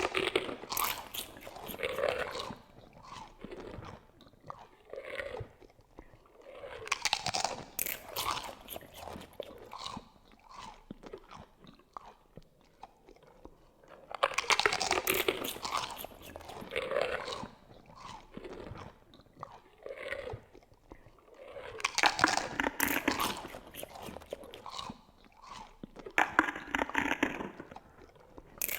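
Sound effect of a monster chewing on bones: wet chewing and crunching bites that come in loud bursts every few seconds, with quieter gnawing between them.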